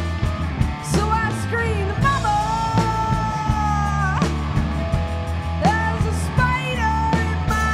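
Live rock trio: a woman sings over electric guitar, electric bass and drum kit, holding one long note from about two to four seconds in.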